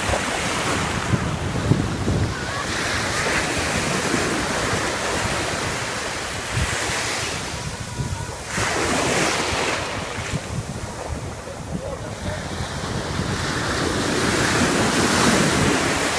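Ocean waves breaking and washing onto shore, the surf swelling and ebbing every few seconds, with wind buffeting the microphone.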